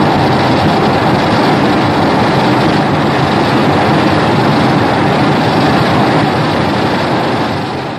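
Loud, steady rushing noise with no clear pitch, fading out right at the end.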